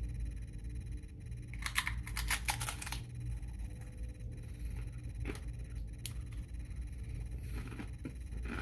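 A person biting into and crunching a crisp tortilla chip, the Paqui One Chip Challenge chip: a quick run of crunches about two seconds in, then quieter chewing with a couple of single clicks. A steady low hum runs underneath.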